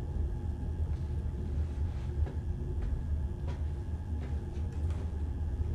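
Steady low rumble of a moving train heard from inside a passenger cabin, with a few faint clicks.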